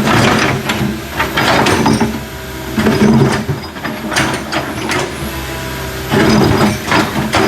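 Backhoe's diesel engine running under working load, swelling and easing several times as the machine works, with short noisy bursts mixed in.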